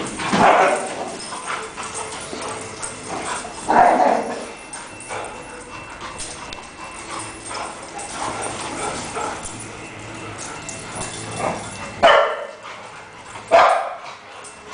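Several dogs playing together, barking and yipping, with a few loud sharp barks standing out about four seconds in and twice near the end.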